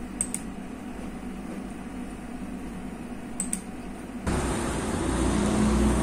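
Steady room hum with two quick double clicks of a computer mouse, one just after the start and one about three and a half seconds in. A little over four seconds in, it cuts abruptly to louder outdoor street noise.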